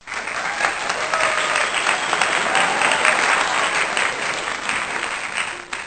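A crowd applauding: dense, steady clapping with a few faint voices mixed in, fading out near the end.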